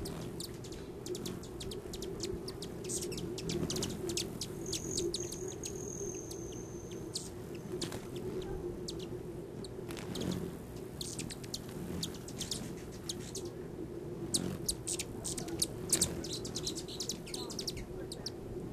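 Hummingbirds at a feeder giving many quick, high chip calls and squeaks over a steady low hum. A thin high whistle holds for a couple of seconds about five seconds in.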